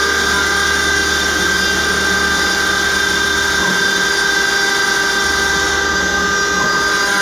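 CNC machining centre spindle running at speed, a steady high-pitched whine over a hiss as the cutter engraves stainless steel.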